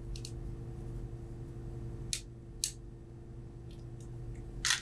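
A few light, sharp clicks and taps of small parts and screws being handled on a workbench, the loudest near the end, over a steady low hum.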